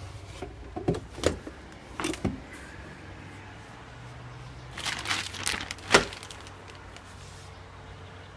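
Car engine running with a steady low hum. Over it come several sharp, irregularly spaced clicks and knocks: a few near the start, a cluster about five seconds in, and the loudest one about six seconds in.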